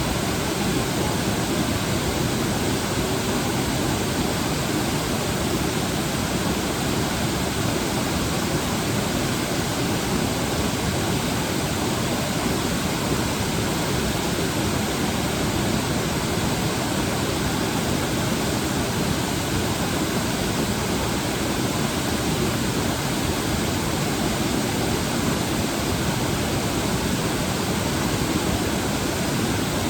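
Waterfall with water rushing down in a steady, unbroken roar of white noise.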